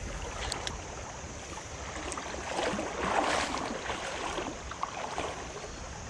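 Shallow creek water running and lapping, with a louder swell of splashing about three seconds in.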